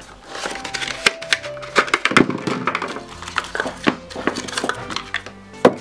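A small cardboard box and its plastic insert being handled and unpacked, with many short knocks, taps and rustles, the loudest near the end. Soft background music with held notes plays underneath.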